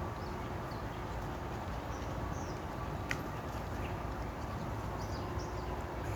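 Wind rumbling steadily on the microphone outdoors, with a few faint bird chirps and a single sharp click about three seconds in.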